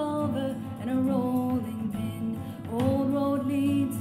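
A song with a sung vocal over acoustic guitar, played back through a B&O S3 speaker, in three held, slowly sung phrases.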